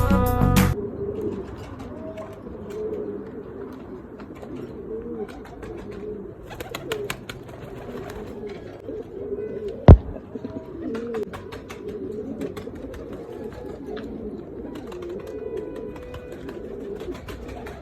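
Domestic pigeons cooing repeatedly in low, wavering calls, with scattered light clicks and rustles. One sharp loud knock comes about ten seconds in. Music ends just under a second in.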